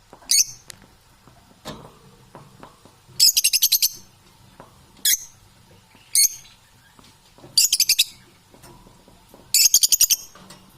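Parrot calling: single shrill high-pitched calls alternating with three rapid stuttering bursts of about ten pulses each.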